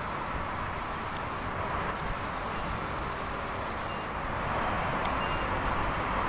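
Outdoor ambience: a steady rushing noise, with a rapid high-pitched trill of many pulses a second joining in shortly after the start and carrying on without a break.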